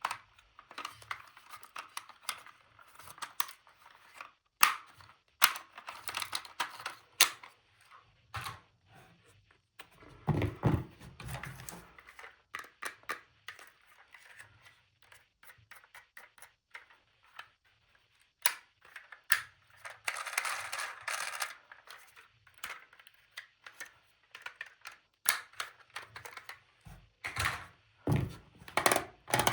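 Hands unpacking and handling small plastic toy pieces: a run of sharp clicks and taps with short stretches of rustling, and a duller thump about ten seconds in.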